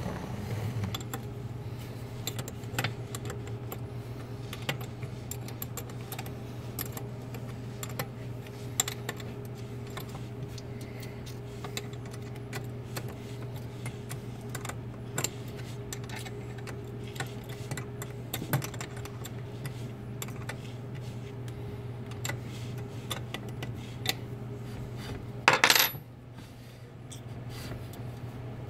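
Scattered light metallic clicks and clinks of small steel nuts, studs and screws being handled and threaded by hand onto a mini lathe's carriage, with one louder clatter near the end, over a steady low hum.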